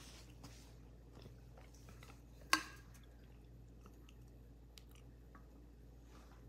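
Faint mouth and handling sounds of a person drinking from an insulated metal bottle, with one sharp click about two and a half seconds in.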